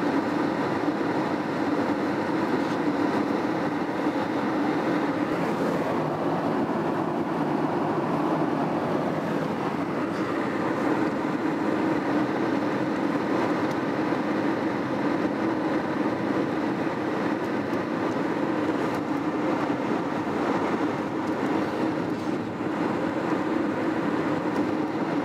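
Steady road and engine noise inside a car's cabin as it cruises along a highway, an even hum with no breaks.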